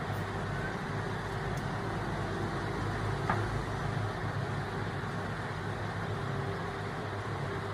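Steady machine hum with a low even drone, and a single short click about three seconds in.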